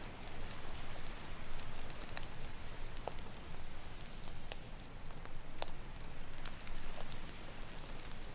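Wood campfire crackling, with sharp pops scattered through it, over a steady wash of ocean surf.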